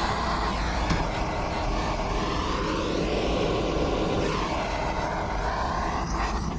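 Blowtorch flame running with a steady roar as it is played over the timber of a beehive floor to scorch it clean, the tone of the roar shifting slowly as the flame moves.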